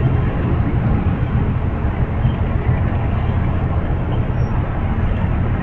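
Amtrak Superliner bilevel passenger cars rolling past on the track, a steady deep rumble of wheels on rail with no distinct clicks.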